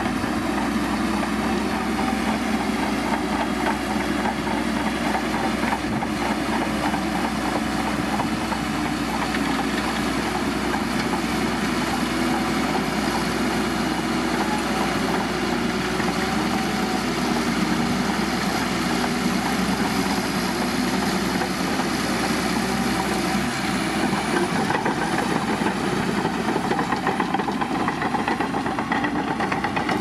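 Shantui crawler bulldozer's diesel engine running steadily as the dozer pushes a heap of soil with its blade.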